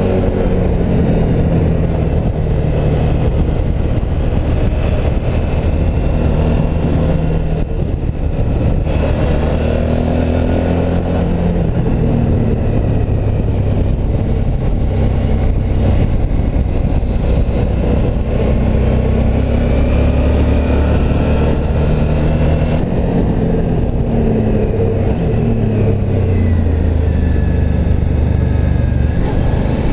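Suzuki V-Strom V-twin motorcycle engine pulling the bike along a winding road, its note rising and falling as the rider rolls the throttle on and off through the corners.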